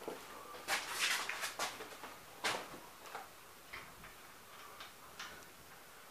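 Handling noises at a brass pressure lantern: a cluster of light clicks and knocks about a second in, a sharper knock a moment later, then a few fainter ticks.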